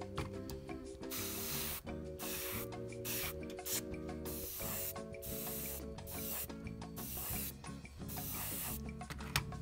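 Gravity-feed airbrush hissing in several short bursts, each about half a second to a second long, as paint is sprayed onto a model, over soft background music with long held chords.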